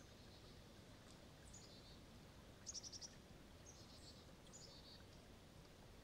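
Faint forest ambience: small birds chirping high and briefly several times, with one quick trill of a few notes about three seconds in, over a low steady hiss.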